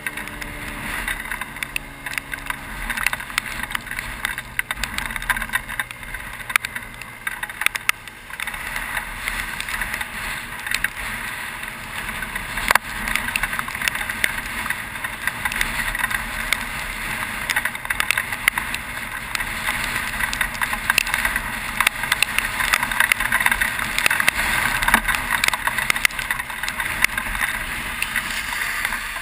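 Wind and heavy rain rushing over the microphone of a 50cc scooter riding through a downpour, peppered with sharp crackles of raindrops hitting it. The rushing gets louder about eight seconds in.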